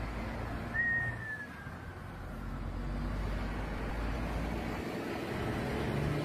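Steady road and engine noise of motorway traffic, heard from a vehicle moving slowly past the crash scene. About a second in, a high thin tone starts and slowly slides down in pitch over a couple of seconds.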